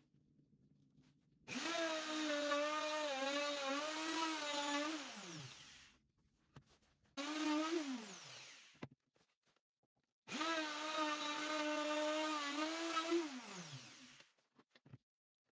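Parkside plunge router started three times. Each time the motor spins up to a steady high whine and then winds down with a falling pitch when it is switched off. During the two longer runs the pitch wavers as the bit is pushed through the wood and epoxy surface.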